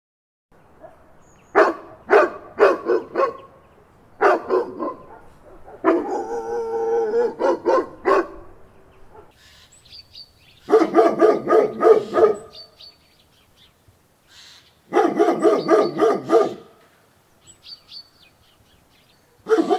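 Large dogs barking in rapid bouts of several deep barks each, with pauses of a second or two between bouts, and one longer unbroken stretch of barking about six seconds in.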